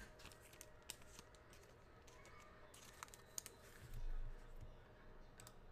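Faint scattered clicks of a computer keyboard and mouse, with a soft low thump about four seconds in.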